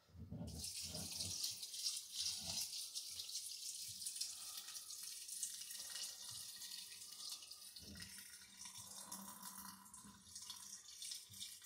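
Thin stream of hot water poured from a metal saucepan into a large glass jar of fruit must, trickling and splashing faintly and steadily. The water rinses leftover sugar syrup out of the pot, with a few soft knocks in the first couple of seconds.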